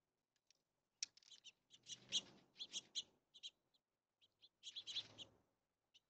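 Birds chirping in two quick bursts of short, high notes: a run of chirps starting about a second in and lasting a couple of seconds, then a shorter run near the end.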